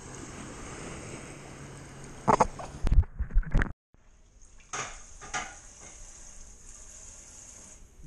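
Water sloshing around the wader, then a cluster of loud knocks and deep thumps close to the microphone as the lighter is handled. After a cut, a quieter steady hiss with a couple of light knocks as small metal finds are handled on a countertop.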